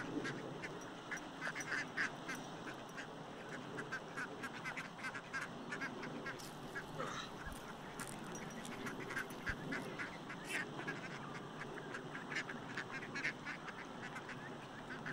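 Waterfowl on a lake calling over and over, many short calls overlapping one another.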